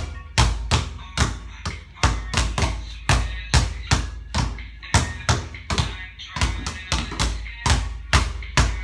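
Basketball dribbled hard on a court in a ball-handling drill: quick, slightly uneven bounces, about two to three a second.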